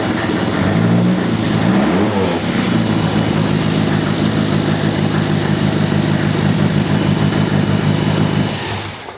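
Ford Kent 1600 four-cylinder engine of a 1976 Hawke DL19 Formula Ford idling just after a start, with a brief blip of the throttle about two seconds in. The engine note dies away near the end as it is switched off.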